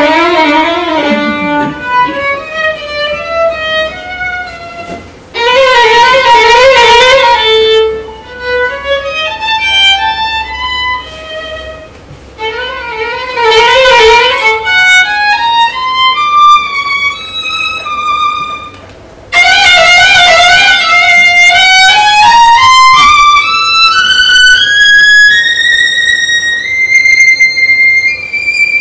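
Solo violin played live: bowed phrases with strong vibrato, each entering loudly and then falling away, and near the end a slow climb up to a high held note.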